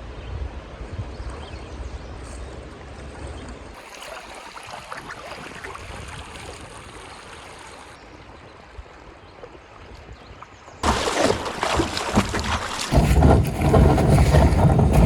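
River water flowing around a paddled kayak, with paddle splashes. About eleven seconds in, the water noise turns much louder with a heavy low rumble.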